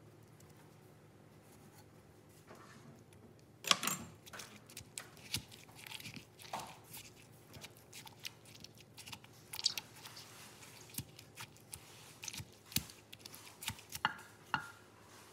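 Wooden pestle pounding chillies, tomatoes and green beans in a mortar for papaya salad: irregular knocks and wet thuds, beginning with one loud knock about four seconds in after a quiet stretch.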